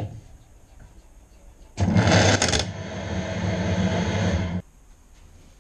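Boxford lathe running briefly, its motor and change-gear train making a loud mechanical running noise. The noise starts with a harsher first second, settles to a steadier run, then cuts off suddenly.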